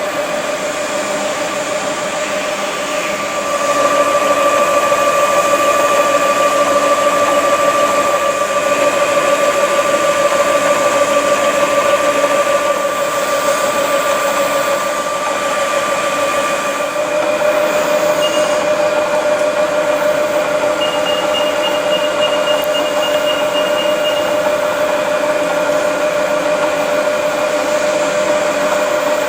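XYZ PRO 3000 CNC turret mill running, a steady machine whine over a hiss. The whine gets louder about four seconds in and shifts in tone around the middle, as the machine changes speed.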